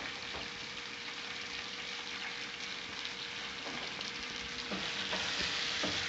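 Pieces of raw fish fillet sizzling in a little oil in a frying pan as they are seared. The sizzle grows louder over the last couple of seconds, with a spatula scraping and knocking against the pan as the pieces are stirred.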